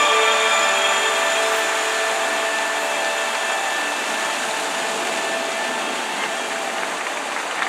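Water fountain jets rushing steadily, slowly getting quieter as the fountains wind down, with the last notes of music dying away early on.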